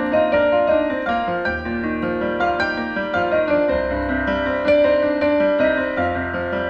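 Piano playing a tune, quick notes over held low bass notes.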